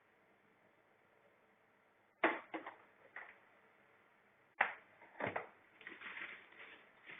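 Handling noise during unboxing: a few sharp clicks and knocks about two seconds in and again about halfway, then continuous rustling toward the end.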